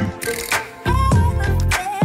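Background music: an R&B/hip-hop track with a heavy bass beat and a wavering melody.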